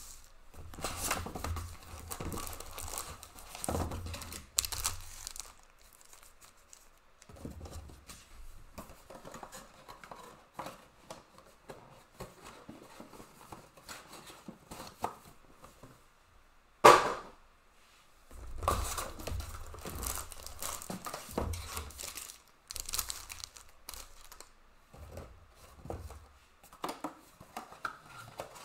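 Foil trading-card packs crinkling and rustling in irregular bursts as they are handled and stacked, with some tearing of wrapper. One sharp knock about two-thirds of the way through is the loudest sound.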